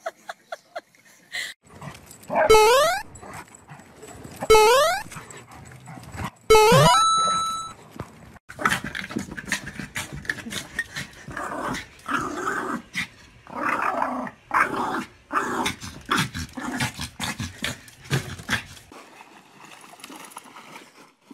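Three loud, short pitched calls about two seconds apart, then a small dog barking and growling in rapid, irregular bursts for about ten seconds.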